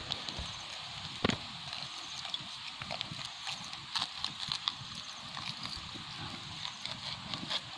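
Irregular clicks and knocks of a bamboo skewer being worked into the mouth of a whole raw fish and of the fish being handled, the loudest knock about a second in, over a steady high hiss.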